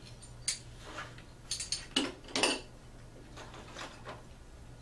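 Small parts and packaging of a Hornady reloading-press control panel kit being handled by hand. A quick run of clicks, clinks and short rustles comes in the first two and a half seconds, then a few softer scrapes, over a low steady hum.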